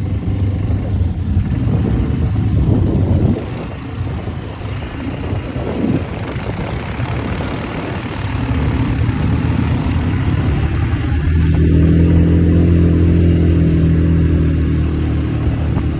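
ATV engine running as the quad is ridden, with the rumble of riding. About eleven seconds in the engine note grows louder and steadier, as under more throttle.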